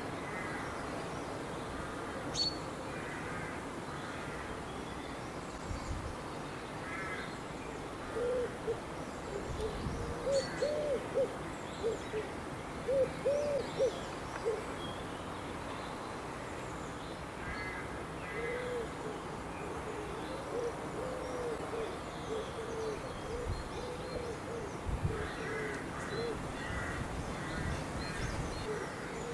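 Pigeon cooing in repeated low phrases, bunched into two spells through the middle and latter part, with faint chirps of small songbirds in the background and a few low thumps.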